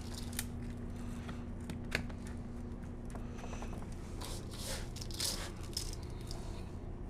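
Handfuls of damp coarse-salt crust mixture crunching and rustling, scooped from a stainless steel bowl and patted over a whole fish on a sheet pan, with a few sharp clicks. A faint steady low hum runs under the first half.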